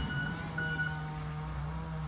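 Heavy construction machine's reversing alarm beeping twice and then stopping, over a diesel engine running.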